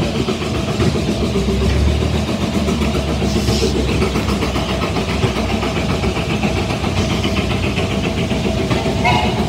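Steam traction engines and old tractors running, a steady mechanical rumble with a brief hiss about three and a half seconds in.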